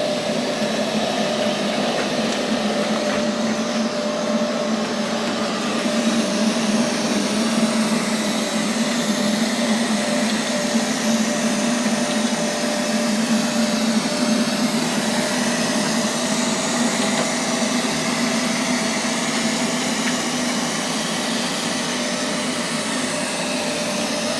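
Neato XV21 robotic vacuum running as it cleans: a steady motor hum and suction rush, swelling slightly partway through and then easing.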